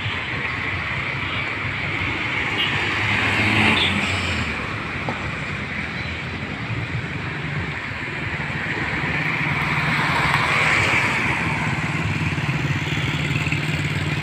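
Motor vehicle running along a wet street: a steady engine hum under tyre and road noise, swelling louder twice, about a quarter of the way in and again after about ten seconds.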